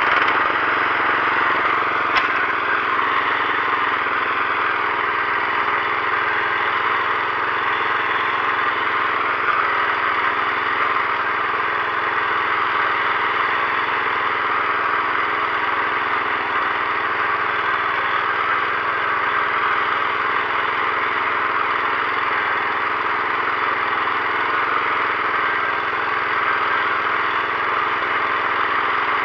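Agros heavy walk-behind tractor's small carburetted petrol engine running steadily under load as it pulls a plough through hard soil, with one brief click about two seconds in.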